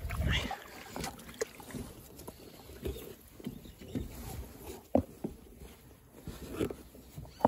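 Irregular knocks, clicks and rubbing of hands and fishing gear against a rubber inner-tube float, with a heavier thump and scrape right at the start.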